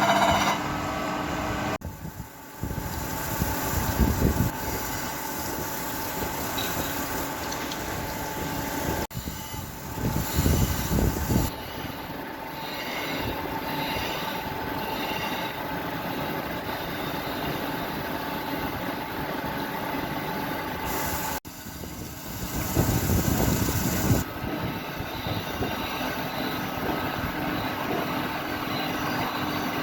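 Crankshaft grinding machine running, the grinding wheel working on a Leyland air compressor crankshaft, a steady grinding noise that grows louder in several surges. The sound breaks off abruptly and resumes a few times.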